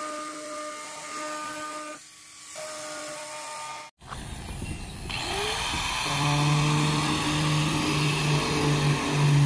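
Power drill with a hole saw running with a steady whine as it cuts into the plastic top of a water tank, easing off briefly about two seconds in. After a sudden break about four seconds in, a louder steady machine hum takes over.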